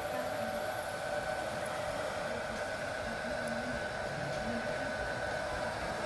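Homemade humidifier running: a steady mechanical whir with a constant hum.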